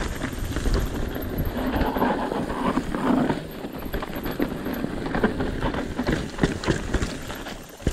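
Mountain bike rolling fast down a dry dirt trail: tyres rumbling over dirt and stones, with frequent sharp clattering knocks from the bike over bumps.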